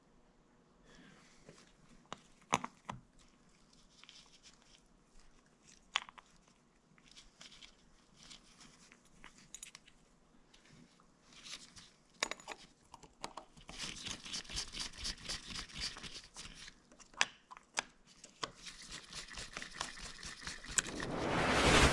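Small metal parts of a motorcycle's handlebar brake fluid reservoir cap being handled by gloved hands: scattered light clicks, then stretches of fast, light ticking as the cap and its screws are worked. A rising whoosh builds up near the end.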